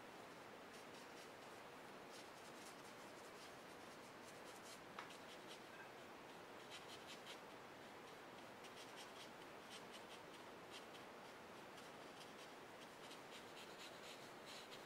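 Faint, quick strokes of a brush-tip pen filled with odorless mineral spirits, sweeping in short lines over colored pencil on paper to blend it, coming in little runs.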